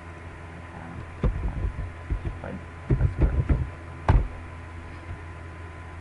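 A run of keystrokes on a computer keyboard, a password being typed: about a dozen short, thumpy taps in quick bunches over three seconds, the last and loudest near the end. A steady electrical hum runs underneath.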